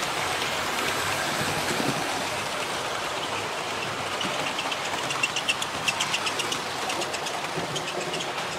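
00 gauge model train, a steam locomotive hauling coaches, running along the track with a steady rattling hum, and a run of light clicks about three a second from about five seconds in.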